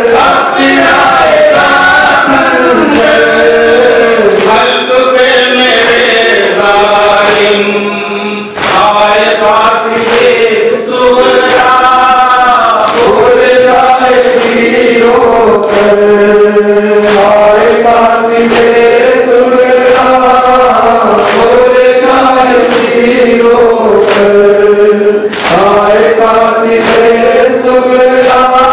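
Two men chanting a noha, a Shia Muharram mourning lament, in a slow melodic recitation into microphones, with a brief break about eight seconds in.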